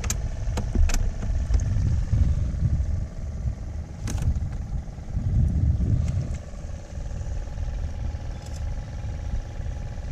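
Knocks and clatter of handling on a small boat while a caught fish is moved into a cooler box, the sharpest knock about four seconds in. Under them runs a steady low rumble with a faint hum.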